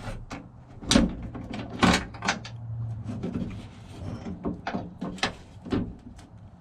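Irregular clicks and knocks of tools and metal parts being worked on a pickup's tailgate latch while its mounting screws go in, with two louder knocks about one and two seconds in.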